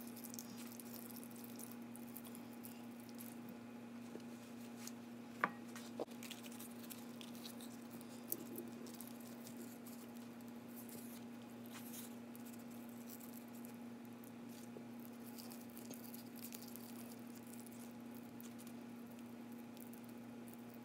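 Quiet handling of baked sweet potatoes as hands break up the soft flesh and pull off skin and fibre over a glass bowl: faint squishing and ticking, with a few sharp taps around five to eight seconds in, over a steady low hum.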